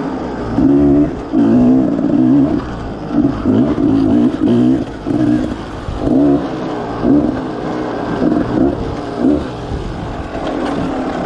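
Enduro dirt bike engine revving in short bursts, the throttle opened and closed about once a second so the pitch rises and falls in quick surges.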